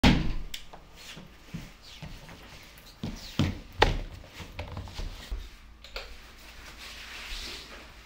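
A door thuds shut at the start, followed by scattered knocks and footsteps on a wooden hallway floor.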